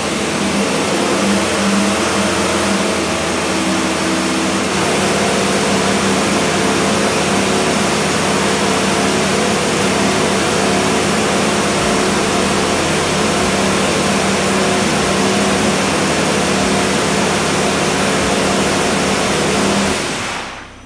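Ferrari Formula 1 car's turbocharged V6 power unit running in the garage, its engine note held steady, then cut off near the end.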